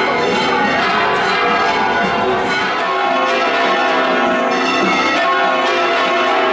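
Church bells pealing continuously, several bells ringing together in a dense, overlapping wash of tones.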